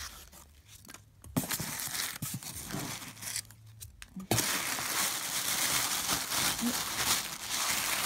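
Tissue paper rustling and crinkling as hands dig through it in a cardboard box, with quieter gaps in the first half and continuous, louder rustling from about halfway through.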